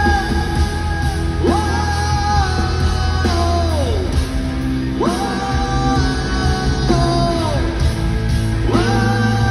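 Live rock band playing unplugged: a steady bass and guitars under a wordless melody line that slides up and then down again, over and over.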